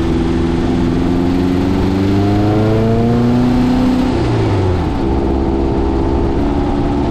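Air-cooled 1600cc VW flat-four engine in a dune buggy pulling under way, freshly tuned with new spark plugs. Its revs climb steadily, fall away about four seconds in, then hold steady.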